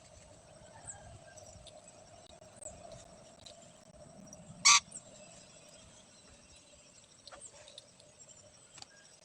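Rainbow lorikeet giving one short, loud screech about halfway through, among faint high chirps over a steady low drone.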